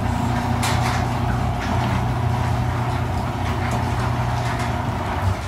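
Chamberlain half-horsepower chain-drive garage door opener running, its motor humming steadily as it raises the garage door, with a few clicks from the chain and door. The run cuts off near the end.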